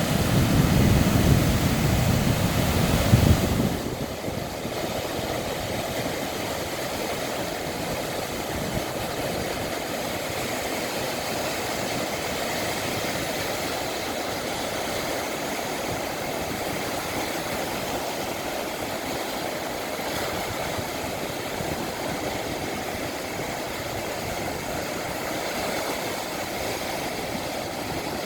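Ocean surf washing steadily in the wind, a continuous even rush, with a louder low rumble for the first three or so seconds.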